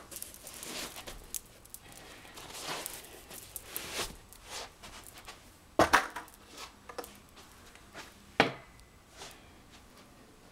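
Handling noise of someone getting dressed and picking things up: soft rustling and scattered clicks, with two sharp knocks about six seconds in and about eight and a half seconds in.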